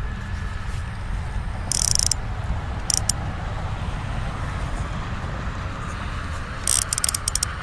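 Steady hum of distant interstate traffic. Over it, the baitcasting reel gives short high-pitched rattles about two and three seconds in and a quick run of clicks near the end as it is worked.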